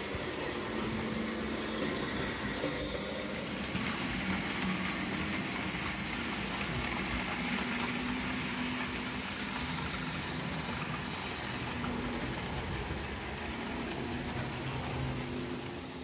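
Bus engine running steadily.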